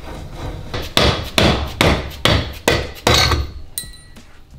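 A hammer tapping on the steering box of a VW T1 split-screen bus as it is dismantled: six sharp blows about 0.4 s apart, then they stop.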